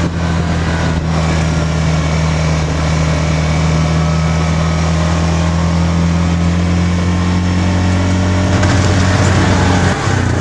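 Vehicle engine running at a steady low drone while driving, with rumble and rattle from the tyres on a rough dirt road, heard from on board. The drone shifts near the end.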